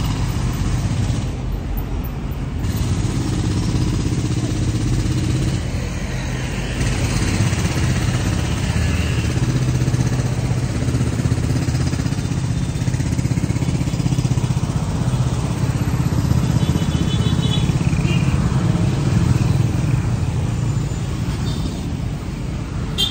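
Busy road traffic passing: a steady mix of engine hum and tyre noise that swells and fades as vehicles go by.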